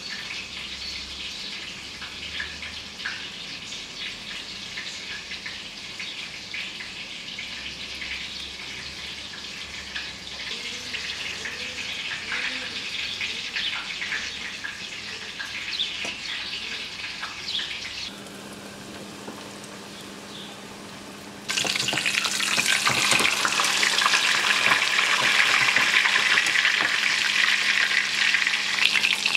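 A breaded chicken fillet deep-frying in hot oil, a loud dense sizzle and crackle that starts suddenly about two-thirds of the way in. Before it there is a quieter, steady crackling hiss.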